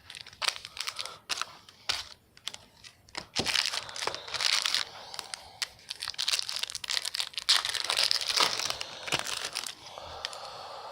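Crinkling and tearing of a trading-card pack wrapper being ripped open and handled: a run of sharp crackles and rustles, busiest through the middle.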